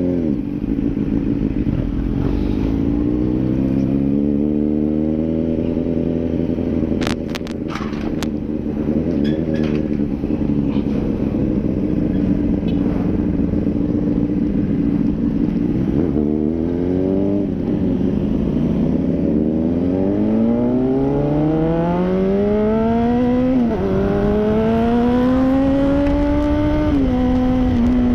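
Honda CBR600RR's inline-four engine heard from on board while riding: it runs steadily, then pulls harder, its pitch climbing and dropping back sharply at each upshift. A few brief sharp clicks about seven to eight seconds in.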